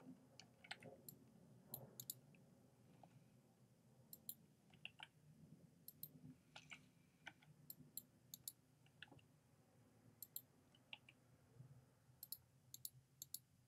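Faint, irregular clicking of a computer keyboard and mouse, single key presses and button clicks a second or so apart, over a low steady room hum.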